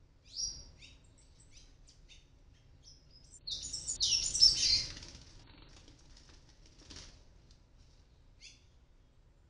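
Palm tanager fledglings giving short, high chirps, with a loud flurry of wing flapping and rapid calls lasting about a second and a half midway.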